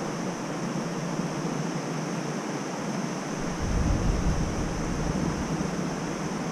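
Steady outdoor background noise with a thin, steady high tone over it. A low rumble comes in a little past halfway, like wind on the microphone or distant traffic.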